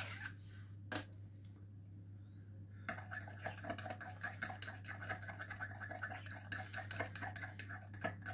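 Metal teaspoon stirring thick hand-feeding formula in a small plastic cup: rapid scraping and clicking against the cup walls, starting about three seconds in after a couple of single light clicks.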